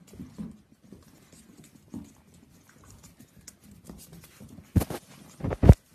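Golden retriever puppies' paws and claws pattering and clicking on a hard floor. Near the end come a few loud thumps as a puppy bumps and brushes against the microphone.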